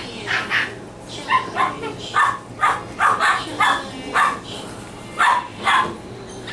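Boston Terrier puppies yipping and barking in play: about a dozen short, high yips, often coming in quick pairs, with a pause of about a second before the last two.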